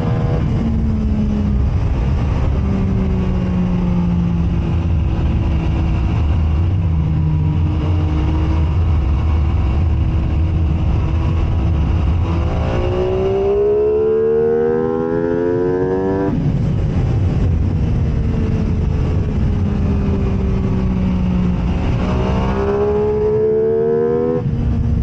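MV Agusta F3 three-cylinder sport motorcycle engine at speed on a race track, its note slowly dropping for long stretches. Twice, a little past the middle and near the end, it revs hard with a rising pitch and then cuts off sharply, over a steady low rumble.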